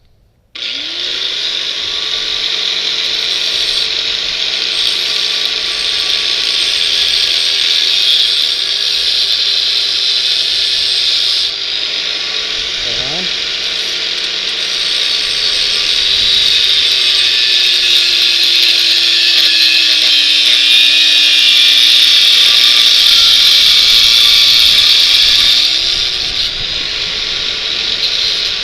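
Electric power tool cutting through a steel bicycle frame tube, starting about half a second in. Its motor pitch sags slowly as the cut loads it, then climbs back about three seconds before the end.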